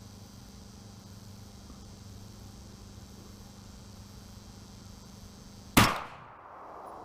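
A single rifle shot from a match-built AR-15, one sharp crack near the end with an echoing tail that dies away over about a second. Crickets chirr steadily underneath.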